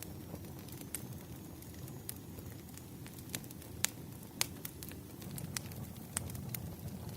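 Wood campfire burning: a low steady rush of flames with scattered sharp crackles and pops, two louder pops near the middle.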